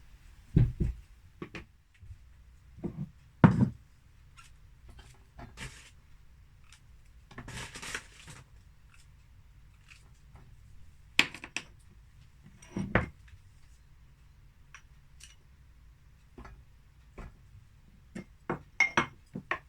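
Kitchen clatter from cooking: scattered knocks and clinks of pans, dishes and utensils being handled, with a brief rubbing noise about eight seconds in.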